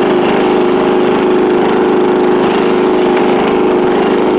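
Riding lawn mower engine running loud and steady through a custom aftermarket exhaust, holding an even speed.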